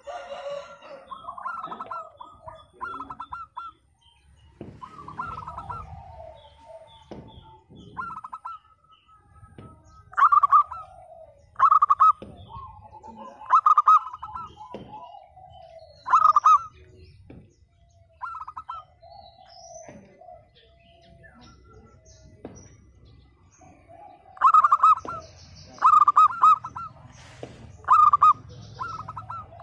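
Zebra dove (perkutut) cooing: repeated half-second bursts of rapid staccato coos, with softer falling notes between them. The loudest bursts come in a run through the middle and again in quick succession near the end.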